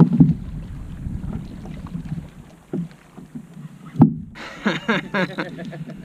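Wind rumbling over the microphone on a kayak at sea, with scattered knocks. The sharpest thump comes about four seconds in.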